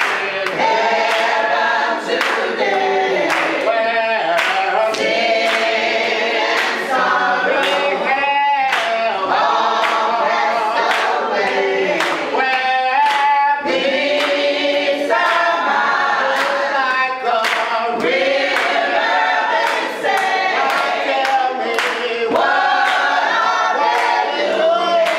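A small group of men and women singing a gospel song to Jesus together, clapping their hands along with it.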